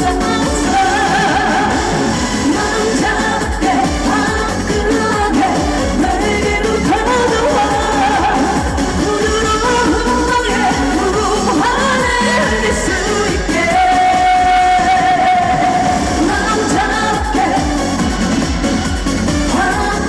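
A woman singing a trot song live over pop-style accompaniment with a steady beat. She holds one long note about two-thirds of the way through.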